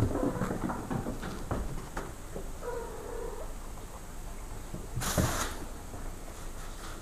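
A kitten meows once, briefly, about three seconds in. Just after five seconds comes a loud burst of plastic bag rustling and crinkling.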